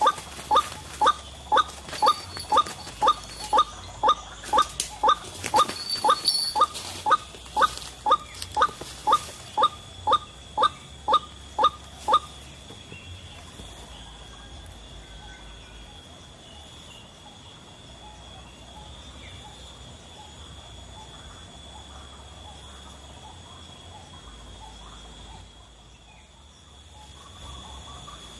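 White-breasted waterhen calls: a short, harsh pitched note repeated about twice a second, which stops about twelve seconds in. After that only faint outdoor ambience remains, with a thin steady high insect-like tone.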